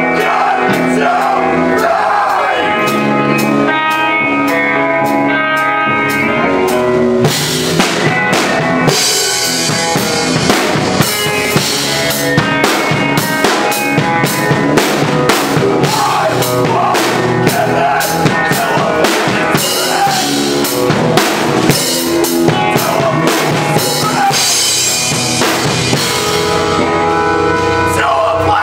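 Hardcore punk band playing live with no vocals: electric guitar chords over a drum kit. About seven seconds in the drumming turns dense, with rapid snare and cymbal hits.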